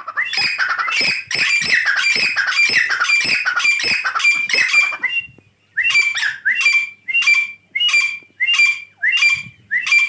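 Grey francolin calling loudly: a fast, dense run of ringing repeated notes for about five seconds. After a brief pause it slows to separate rising notes, about two a second.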